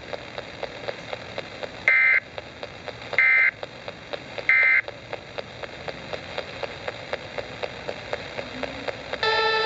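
Three short, harsh data bursts about a second apart, the EAS end-of-message signal that closes a radio station's severe thunderstorm warning, over radio hiss with regular faint clicking. Near the end, music starts up.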